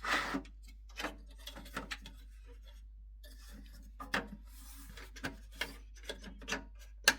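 Hard drive tray carrying a 3.5-inch hard drive being slid and pushed into the PC case's drive cage: a series of short scrapes and light knocks, with a sharp click near the end as the tray locks into place.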